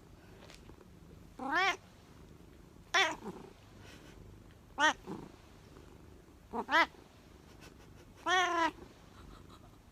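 A cat meowing repeatedly: about six short meows a second or two apart, each falling in pitch at its end, the last one the longest.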